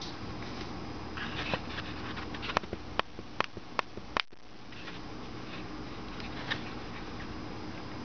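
Steady indoor room hum, broken near the middle by a quick run of about six sharp clicks and a brief cut-out, typical of a camera being handled while zooming.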